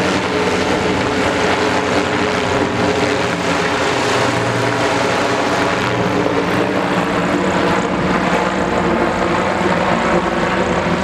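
Zeppelin NT airship's piston engines and propellers droning steadily as it flies low overhead.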